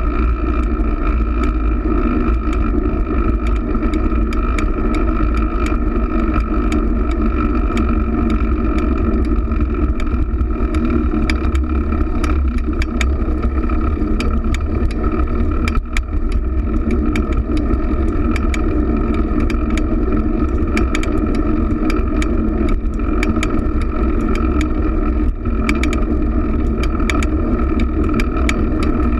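Steady wind and road noise picked up by a camera mounted on a fixed-gear bicycle riding over city pavement, with a heavy low rumble and frequent small rattles and clicks from the bike.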